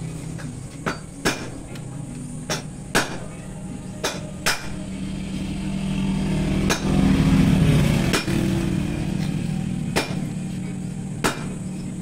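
Suzuki Raider 150 Fi single-cylinder engine running at idle through a gutted stainless exhaust, swelling briefly in a light rev about seven seconds in. About ten sharp knocks like hammer strikes come at uneven intervals over it.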